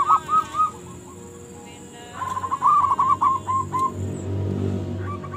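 Zebra doves (perkutut) cooing in quick runs of short, wavering notes: one run at the start, a pause, then another run about two seconds in. A low rumble rises underneath near the end, with a faint steady high whine.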